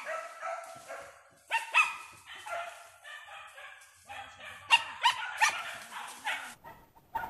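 Pack of hunting dogs barking and yelping on a chase, several high-pitched voices overlapping, with sharp loud yelps at about a second and a half and again around five seconds in.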